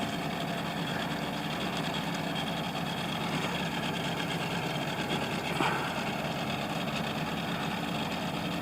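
Boat motor running steadily at low trolling speed, a constant low hum.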